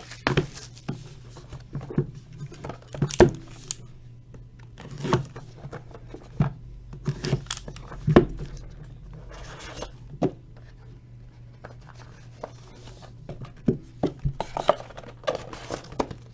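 A trading card box and its wrapping being opened and handled: packaging tearing and crinkling, with scattered clicks, taps and scrapes of cardboard and cards being handled.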